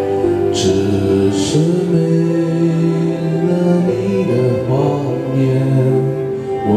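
Karaoke song playing: a slow pop ballad with a singing voice holding long notes over the backing music. Two short hissing accents come about a second apart near the start.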